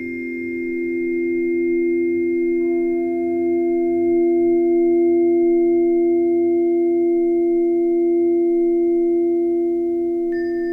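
Sustained pure tones of the tuning-fork kind: two low notes sound together with fainter higher tones above them. They hold steady throughout and swell slightly in level around the middle. A new higher tone comes in near the end.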